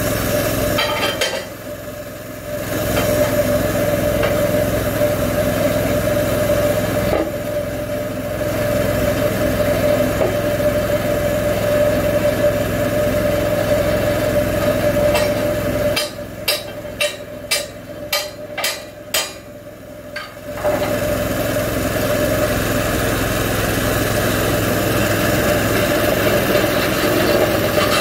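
Small engine of a homemade bandsaw mill running steadily, dipping in loudness three times. Partway through, a run of about eight sharp knocks comes over a few seconds.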